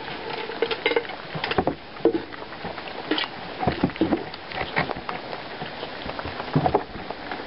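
Pig eating small dry food pieces off a doormat: irregular, crisp crunches and clicks of chewing.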